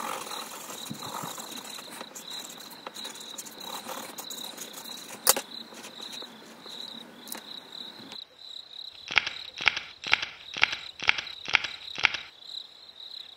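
Pencil scribbling on paper, with a single sharp tap about five seconds in; then, from about nine seconds, about eight quick footstep sound effects, roughly two a second, as an animated frog walks. A steady high cricket trill runs underneath throughout.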